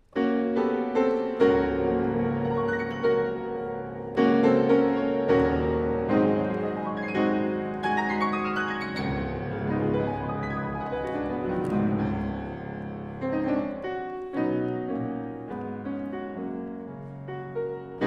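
Grand piano playing a sequence of chords, with a quick rising run about eight seconds in.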